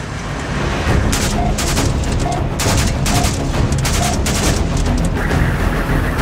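A rapid string of AR-15 rifle shots, over background music that has a short tone repeating about once a second.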